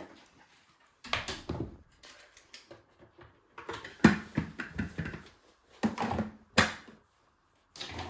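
Irregular plastic clunks, rattles and knocks from a Bosch bagless vacuum cleaner's clear dust container being set down on the floor, handled and fitted back into the switched-off machine. The sharpest knocks come about four seconds in and again about a second before the end.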